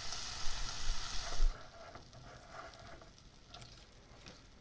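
Silicone spatula stirring cherry juice into sugar and cornstarch in a glass bowl, with faint scrapes and taps against the glass. A steady hiss in the first second and a half cuts off suddenly.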